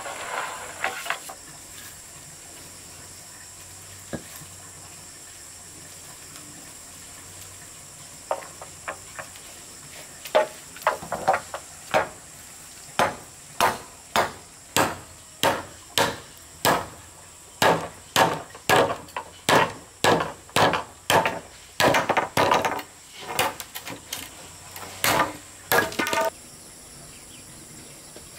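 A long series of sharp knocks, like a tool striking wood, roughly one a second, starting about eight seconds in and stopping abruptly near the end, over a steady high-pitched background tone.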